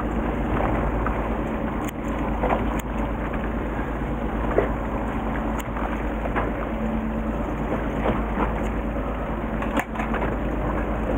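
Steady wind and boat noise on a small fishing boat at sea, with a few scattered small clicks and crackles from handling bait and tackle.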